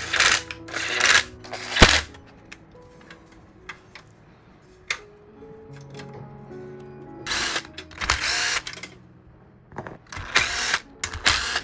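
Electric screwdriver running in short bursts, three pairs of them, as screws are driven during a PC build, with a sharp click near the start. Background music plays underneath.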